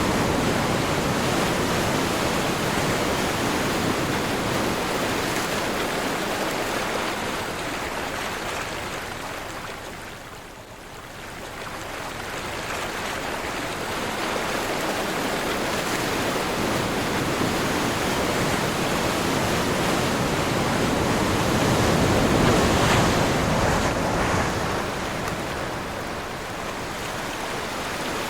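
Sea surf: waves breaking and washing in as a continuous wash of noise, with wind blowing over the water. It ebbs to a lull about ten seconds in, then builds again as a fresh wave comes in.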